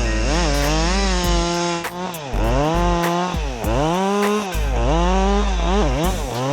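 Husqvarna 550 XP Mark II two-stroke chainsaw cutting wood at high revs. The engine note sags in pitch as the chain bites and climbs back as it frees, about six times.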